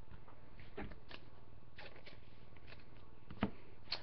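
Faint clicks and rustles of hands handling trading cards, with a sharper tap near the end.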